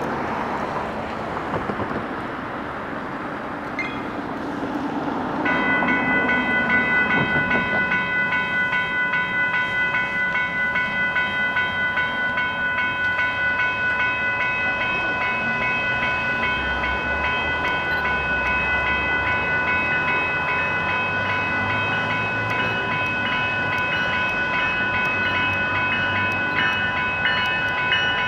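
Level-crossing warning bell starting to ring about five seconds in and ringing on steadily in quick regular strokes, with a low rumble building underneath later on.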